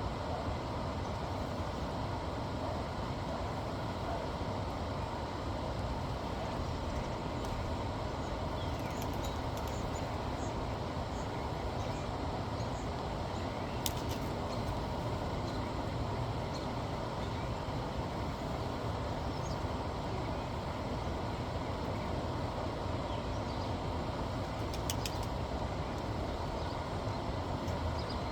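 Steady outdoor background rumble and hiss, with a few faint bird chirps and brief sharp clicks about halfway through and again near the end.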